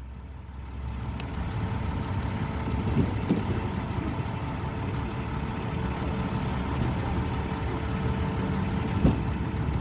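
Motor vehicle running, a steady low rumble that swells about a second in and then holds level.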